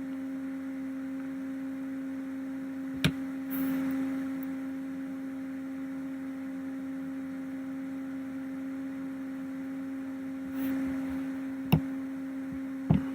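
Steady electrical hum with a single clear pitch, broken by three short sharp clicks of a computer mouse: one about three seconds in and two close together near the end.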